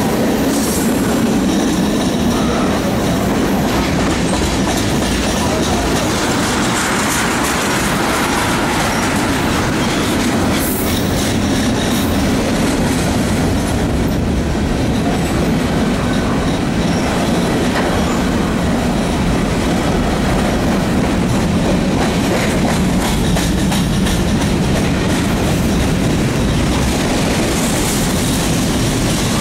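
Freight train of tank cars and covered hoppers rolling past close by: a steady loud rumble of steel wheels on rail, with clickety-clack as the wheels cross rail joints.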